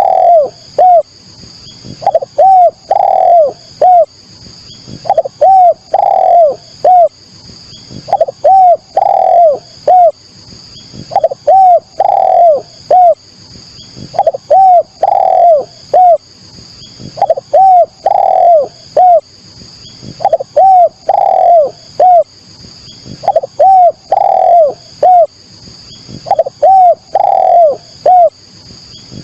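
Spotted dove (derkuku/tekukur) cooing: a phrase of three or four short, rounded coos repeated about every three seconds, with a steady high-pitched tone running behind it.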